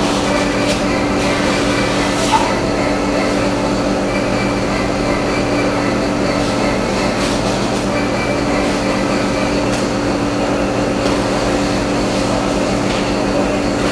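Steady mechanical rumble with a constant low hum of several fixed tones and a few faint clicks.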